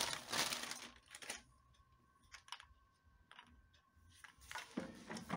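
Crinkling of a clear plastic bag handled in gloved hands, then a few light, separate clicks and more rustling as the air compressor's breather plug is unwrapped.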